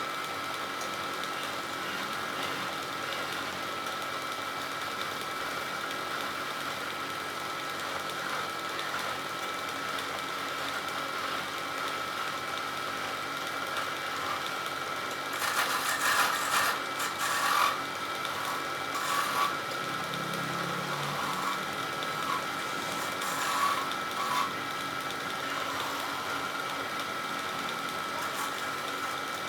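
Wood lathe running with a steady motor whine while a turning chisel cuts the spinning wood. The scraping comes in louder bursts from about halfway through, with a last one right at the end.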